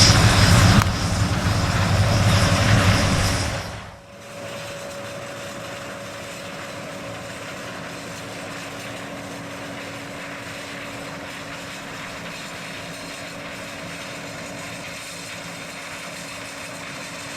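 Large diesel farm machinery running loud and close for about four seconds, then dropping away suddenly to a steadier, quieter engine drone with a fixed hum.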